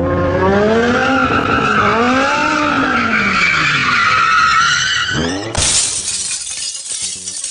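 Car engine revving up and down with tyres squealing as it drifts, then about five and a half seconds in a sudden crash of shattering glass.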